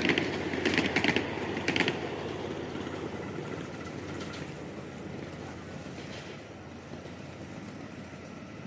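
Ride-on scale live-steam train running: a burst of rapid clicking over the first two seconds, then a steady running noise that slowly fades.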